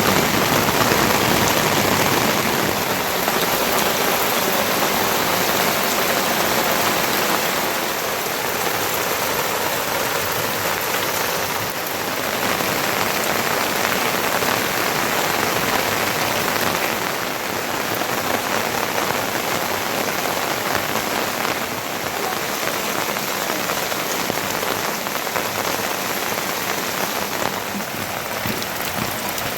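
Heavy rain falling steadily, a dense continuous hiss of drops on surfaces.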